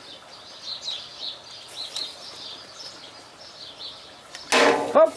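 Small bird chirping repeatedly, short high chirps a few times a second, over steady outdoor background noise. About four and a half seconds in there is a sudden brief loud noise.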